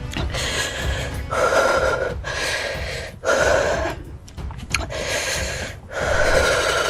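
A person breathing hard through an open mouth, gasping and panting at about one heavy breath a second, typical of someone whose mouth is burning from an extremely hot chip.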